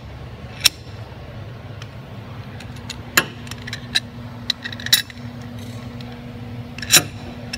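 Steel wrenches clinking against the jam nut and bladder stem of a bladder accumulator as the jam nut is loosened: half a dozen sharp, scattered metal clicks, the loudest near the end, over a steady low hum.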